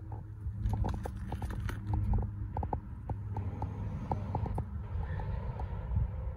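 Handling noise and footsteps as the camera is carried low along a pickup's underside: a run of light, irregular clicks and taps over a steady low rumble.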